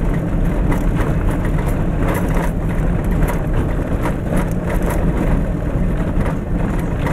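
Vehicle driving along a bumpy gravel road: a steady low rumble of engine and tyres, broken by frequent short knocks and jolts from the rough surface.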